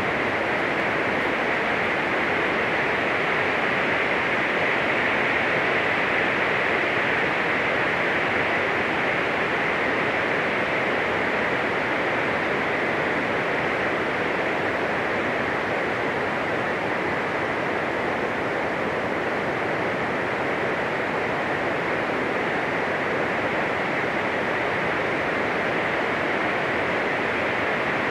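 Steady, loud hiss-like noise with no pitch or rhythm, unchanging throughout, strongest in the upper-middle range.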